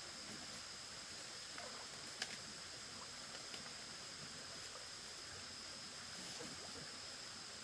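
Steady hiss of running water, with a faint steady high tone over it and a few small clicks or splashes, the sharpest about two seconds in.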